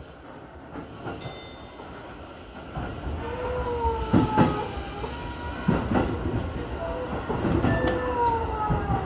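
Electric commuter train pulling away and gathering speed, heard from inside the front car: the running noise grows from about three seconds in, with a wavering squeal from the wheels on a curve and a few sharp knocks from the wheels over the track.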